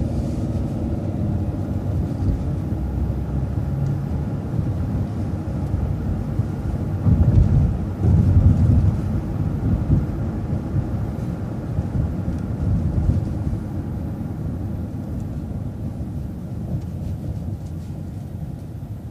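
A city transit bus driving, giving a steady low engine and road rumble that swells about seven to nine seconds in and then eases off toward the end.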